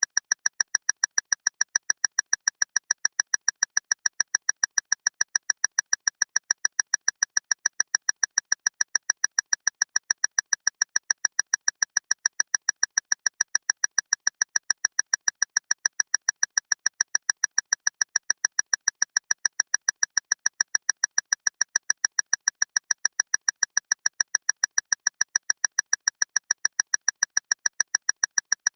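Loud clock ticking fast and steadily, about five sharp, ringing ticks a second.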